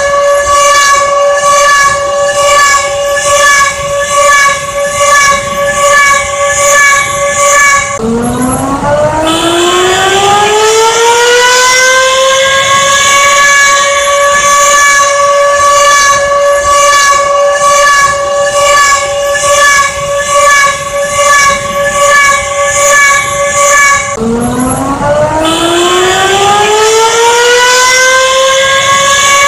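Loud emergency warning siren holding a steady tone with a quick wavering. Twice, the pitch drops suddenly and then winds back up over about four seconds to the same steady tone.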